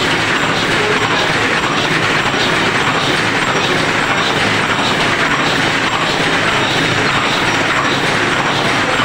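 High-speed paper cup making machine running: a loud, steady mechanical clatter from its rotary forming turrets and feed mechanism.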